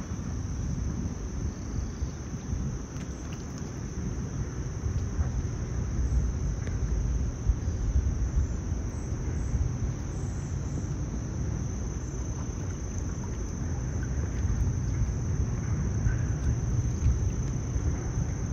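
Outdoor pond ambience: a fluctuating low rumble of wind on the microphone, with a steady high-pitched drone of insects.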